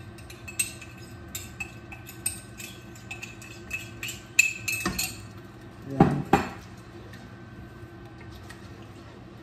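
Cooking utensils clinking and scraping against a metal pot on the stove: a run of light clinks with a slight ring, then two louder knocks about six seconds in.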